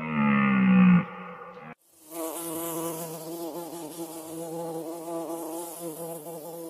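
A cow's moo ends about a second in, then, after a short silence, a honeybee buzzes steadily with a slightly wavering pitch.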